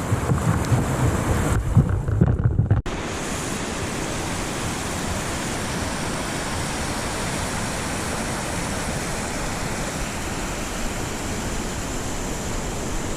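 Gusty wind buffeting the microphone for about three seconds, then a sudden cut to the steady, even rush of whitewater river rapids.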